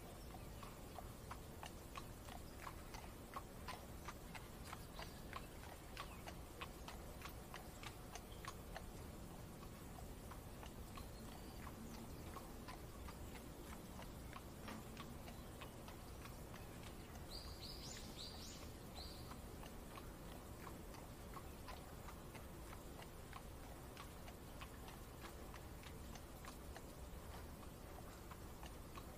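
Faint horse-drawn carriage ambience: a long run of hooves clip-clopping over a low steady hiss, with a brief burst of bird chirps about two-thirds of the way in.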